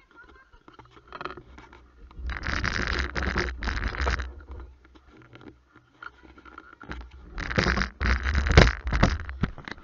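Scraping and rubbing of a handheld camera being handled, its microphone rubbed, in two bursts of about two seconds each with a low rumble under them.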